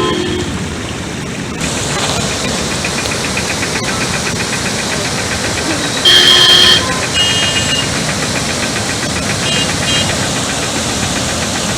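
Vehicle engine running steadily. About six seconds in, a loud steady tone sounds for under a second.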